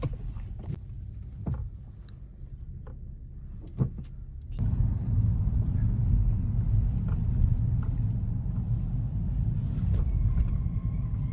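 A few scattered clicks and knocks, then, about four and a half seconds in, a car's steady low driving rumble starts suddenly and carries on.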